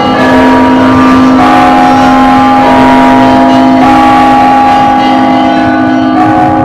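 Russian Orthodox church bells ringing loudly, several bells sounding together in long ringing tones, with fresh strikes about every two and a half seconds.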